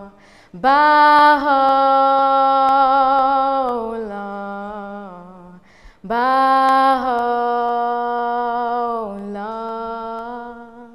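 A single voice sings a slow, unaccompanied Bahá'í devotional chant in two long phrases of drawn-out held notes. Each phrase fades away over about five seconds, with a short pause between them.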